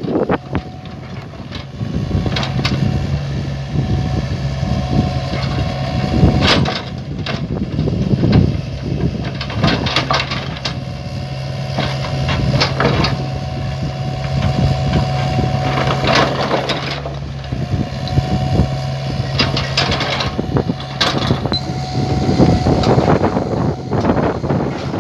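U48 mini excavator's engine running steadily under work, with a higher whine that comes and goes. Repeated knocks, clanks and scrapes come from the machine working the load.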